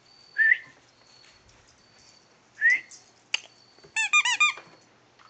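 Squeaks from a dog's squeaky toy bone being bitten: a single squeak about half a second in and another a little before three seconds, then a quick run of about five squeaks about four seconds in.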